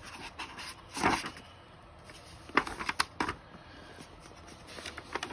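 Hardcover picture book handled and its pages turned by hand. There is a paper swish about a second in, then a few short, crisp paper rustles and taps as pages are flipped over.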